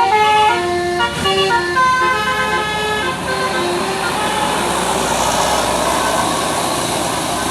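A bus's telolet basuri musical horn plays a quick melody of stepped, flute-like notes that stops about three seconds in. Steady engine and road noise follows.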